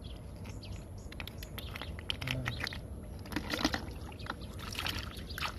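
Hands splashing and sloshing in shallow muddy water while gathering large freshwater snails, with many small sharp clicks from the shells being handled.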